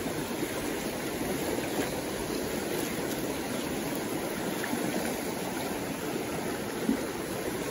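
Fast-moving river water rushing steadily over rocks and through white water.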